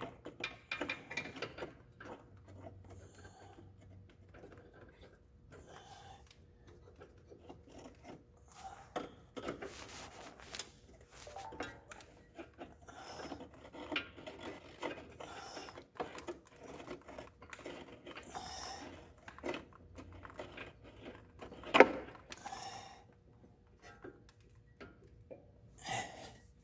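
Scattered metallic clinks, taps and scrapes of a wrench on a brake line fitting as the soft line is unscrewed from the seized hard line, with one sharp metal knock a little past the middle.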